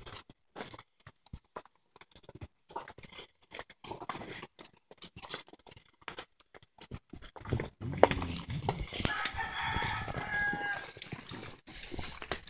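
A rooster crowing, pitched and drawn out, from about nine to eleven seconds in. Scattered sharp knocks and clicks run through the rest, the loudest a single knock about eight seconds in.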